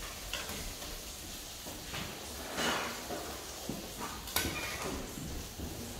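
Metal kitchen tongs clinking and scraping against a stainless-steel pot while spaghetti is lifted out and dropped into a frying pan: a few scattered clicks, the sharpest about four seconds in.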